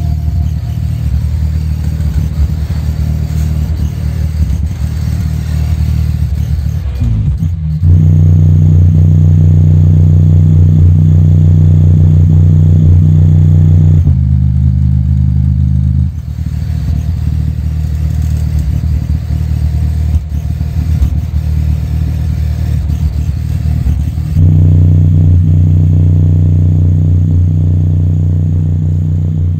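Logitech Z623 subwoofer playing a bass test track very loud, its cone pumping hard. The deep, sustained bass notes step up in loudness about eight seconds in, ease off about halfway and surge again near the end.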